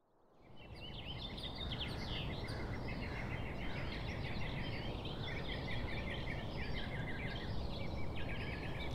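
Many small birds chirping and twittering in quick, repeated short notes over a steady low background rumble, fading in from silence at the start.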